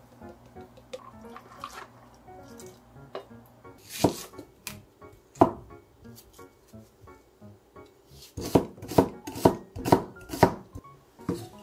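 Kitchen knife slicing an onion on a cutting board: two separate cuts, then a run of strokes about two a second, over soft background music.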